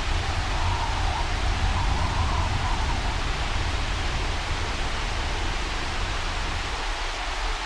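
Storm soundscape of wind and rain as a steady rushing noise, with a deep rumble underneath and a faint wavering whistle of wind in the first few seconds.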